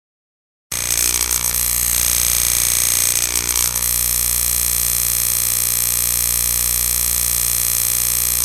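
Synthesized science-fiction sound effect: a loud electronic drone of many steady tones over hiss. It starts abruptly under a second in, warbles and churns for about three seconds, then settles into a steady pulsing hum, and cuts off suddenly.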